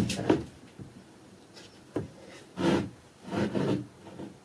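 Wooden cupboard parts being handled: a sharp knock about two seconds in, then two short bouts of wood scraping and rubbing.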